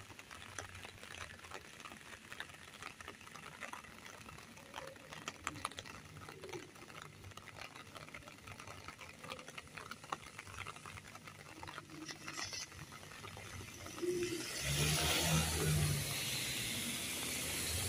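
Rain falling, heard as a faint steady hiss with many scattered drops ticking. About fourteen seconds in, a vehicle's tyres hiss loudly on the wet road over a low engine hum.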